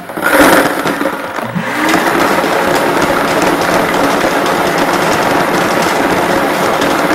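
Lottery ball drawing machine starting up for a draw: its motor spins up with a rising whine, then runs steadily while the balls rattle inside.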